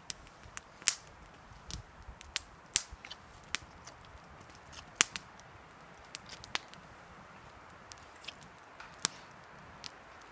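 Small wood campfire crackling, with irregular sharp pops and snaps; the loudest pops come about a second in, at about five seconds and at about nine seconds.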